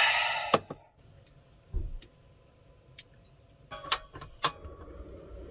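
A bowl is handled and set down on a wooden table with a short scrape and a couple of clacks. Near the end a few sharp clicks come from the knob and igniter of a portable butane gas stove, and the burner lights with a low, steady gas hiss.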